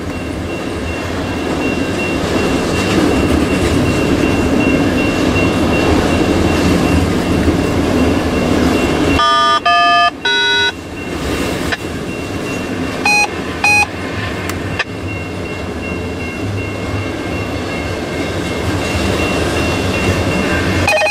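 Loaded double-stack intermodal well cars of a CN freight train rolling past, a steady rumble and rattle of steel wheels on rail that grows louder over the first few seconds. About halfway through, a quick run of short electronic tones and then two short beeps cut in.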